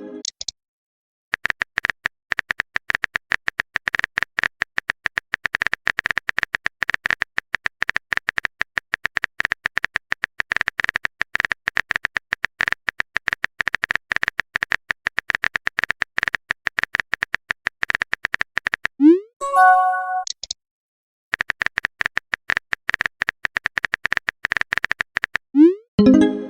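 Phone-keyboard typing sound effect: a long run of rapid, sharp clicks. About 19 seconds in it pauses for a short rising pop and chime, a message alert, then the clicking resumes, and another alert begins at the very end.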